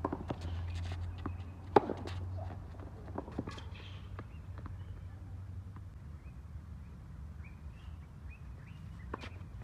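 Tennis rally on a hard court: sharp racket-on-ball strikes and ball bounces, with the loudest a close racket hit about two seconds in, and footsteps between the shots, over a low steady hum.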